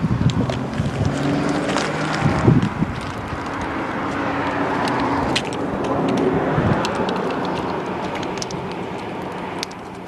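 A motor vehicle going by: a steady rushing sound with a low engine hum that swells toward the middle and slowly fades, with wind on the microphone.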